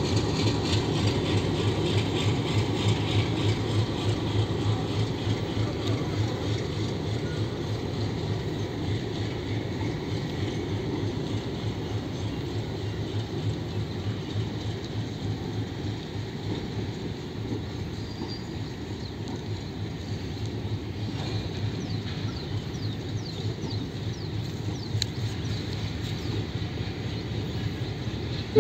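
Passenger train's coaches rolling past as the train pulls out, wheels clicking over the rail joints in a steady rhythm over a low rumble that gradually grows quieter.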